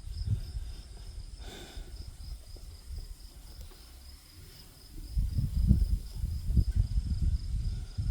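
Steady high insect trill, like crickets, running without a break, with a louder low buffeting rumble on the microphone starting about five seconds in.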